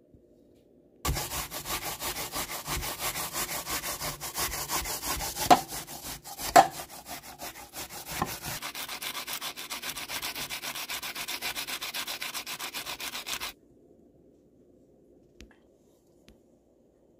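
Hand grater scraping in quick, even strokes as fruit is grated. It starts about a second in and stops abruptly near the end, with two louder knocks midway.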